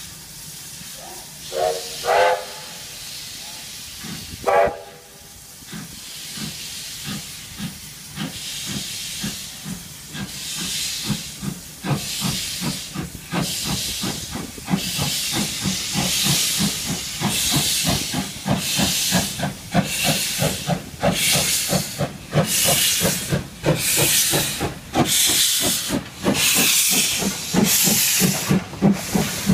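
Steam locomotive sounding three short whistle toots, then moving off with its cylinder drain cocks open: regular exhaust chuffs and bursts of steam hiss that grow louder as it approaches.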